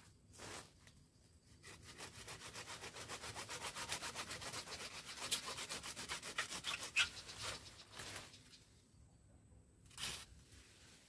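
Hand pruning saw cutting into a tree branch with quick, even back-and-forth strokes that stop about eight seconds in. A short sharp knock follows near the end.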